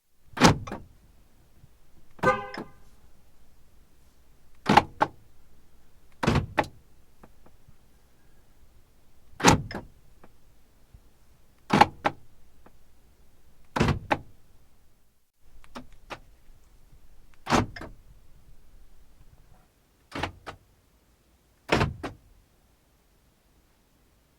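Car door locks clunking shut, about ten sharp locking clunks a couple of seconds apart, over a faint low hum. A short pitched chirp sounds with the second clunk, about two seconds in.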